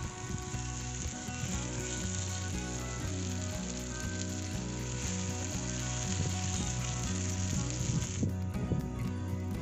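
Tomato and onion slices sizzling in a frying pan, a steady crackling hiss that drops away about eight seconds in.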